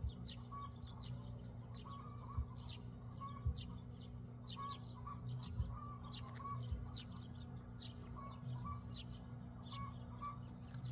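Small birds chirping: many short, sharp, falling chirps repeated over and over, mixed with shorter, lower call notes. A steady low hum runs underneath.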